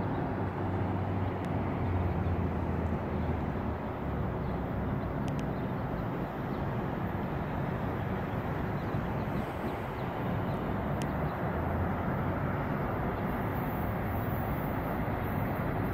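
Steady low rumble of an approaching BNSF double-stack freight train's diesel locomotives, blended with passing road traffic.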